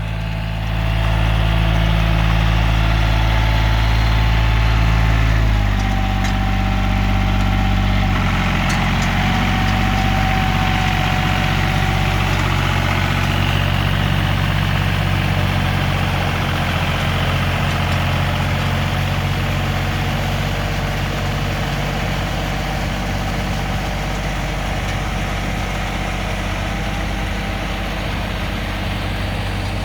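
Tractor engine running steadily while working a harrow through a flooded rice paddy. The engine note drops in two steps, at about five and about eight seconds in, then holds even.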